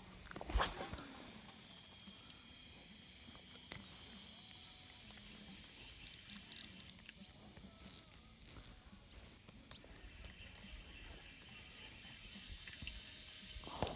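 Insects chirping steadily in the background. A brief swish comes about half a second in, a single sharp click near the four-second mark, and a few short high hissing bursts around eight to nine seconds.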